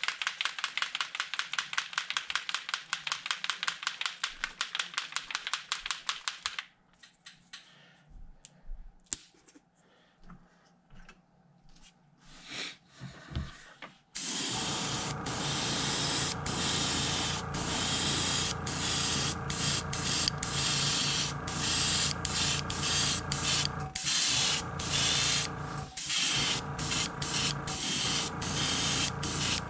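Airbrush spraying pearl white paint: a steady hiss with a motor hum underneath, starting about halfway through and broken by a few short pauses as the trigger is let off. Before that comes a rapid pulsing hiss for several seconds, then a quiet spell with a few light clicks and knocks as the lure stand is handled.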